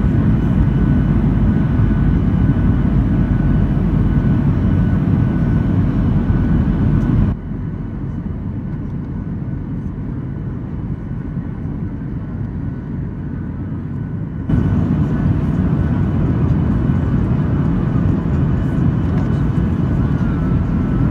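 Steady drone of a Boeing 737-800's CFM56-7B turbofan engines and airflow, heard inside the passenger cabin. About seven seconds in the sound abruptly drops to a quieter, duller drone, and about seven seconds later it jumps back up just as suddenly.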